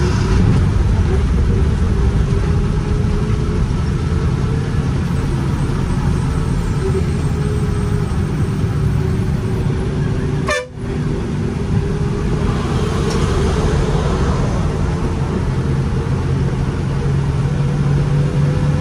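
Bus diesel engine running steadily under load, heard from inside the cabin: a deep drone with a faint whine slowly rising in pitch. The sound cuts out for a split second just past the middle.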